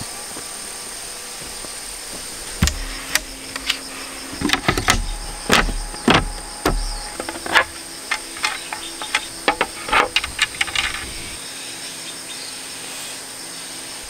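Wooden clothes-rack frames and dowel rail knocking and clacking together as they are handled and fitted, in irregular sharp taps from about three seconds in until about eleven seconds in.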